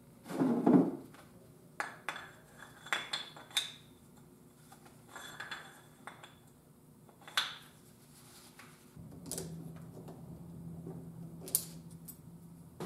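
Steel gears and shaft of an NP231 transfer case being handled and fitted together on a workbench: a heavy clunk about half a second in, then scattered metal clicks and clinks, some ringing briefly.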